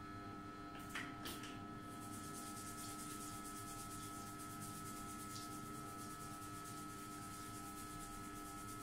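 Fingertips massaging the scalp and rubbing through damp hair: a steady, fast, hissy rubbing that begins about two seconds in, after two light clicks.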